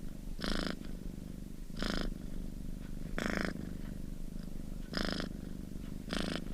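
Domestic cat purring close up, a steady rumble that swells about every second and a half with its breaths.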